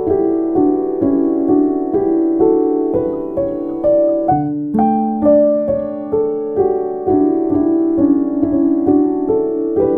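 Background piano music: a melody of single notes struck about two or three times a second, with a lower note held briefly a little before halfway.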